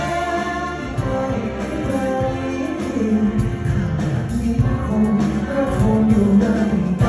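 A man singing a slow ballad into a handheld microphone, backed by a live orchestra.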